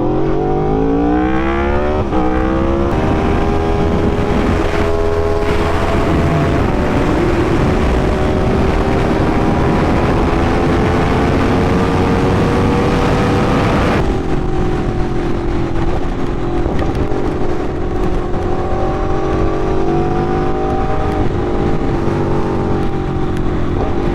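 Aprilia RSV4 sport bike's V4 engine under hard acceleration on the road. The pitch climbs over the first few seconds, breaks at a gear change about three seconds in, then rises slowly. It drops sharply about fourteen seconds in and runs fairly steadily after that.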